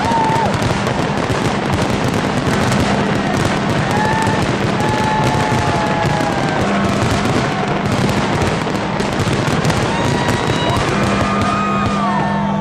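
Large fireworks display: a continuous dense barrage of crackling and popping bursts.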